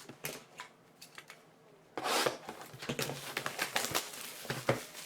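Trading-card packaging being handled and torn open: a few light clicks, then from about two seconds in a dense run of crinkling and tearing.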